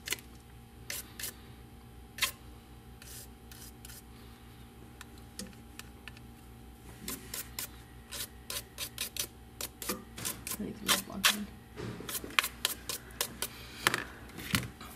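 Toothbrush bristles scrubbing a Samsung Galaxy S5's midframe to clear leftover shards of the cracked screen glass: quick scratchy clicks, scattered at first and coming in dense bursts from about halfway through.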